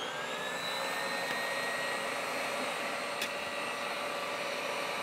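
Stand mixer motor running at its top speed, driving the fettuccine cutter attachment while it turns empty: a steady whine that climbs slightly as it comes up to speed in the first second or so. One short click about three seconds in.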